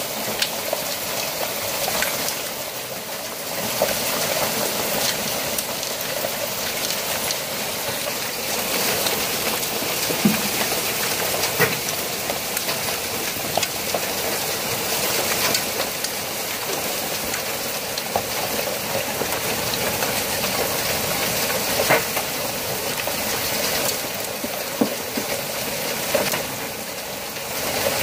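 Heavy hailstorm: hail and rain pelting down in a steady, dense hiss, with frequent sharp clicks of individual hailstones striking.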